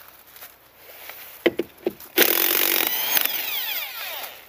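Corded electric impact wrench with a 19 mm deep socket loosening a wheel nut: it runs in a loud burst from a little past two seconds in, and its motor winds down with a falling whine after the trigger is released. A few sharp clicks come just before the burst.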